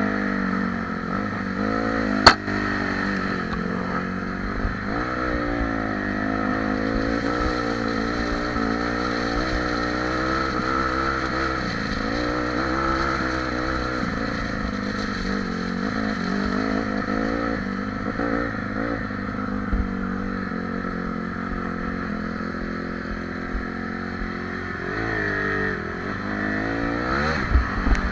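Honda CRF150R dirt bike's four-stroke single-cylinder engine running under way, its revs rising and falling with the throttle, with a sharp knock about two seconds in.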